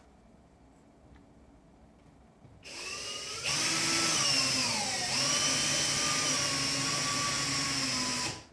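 Power drill driving a screw into a wall: it starts about three seconds in, speeds up, dips in pitch briefly under load about halfway, then runs steadily and stops just before the end.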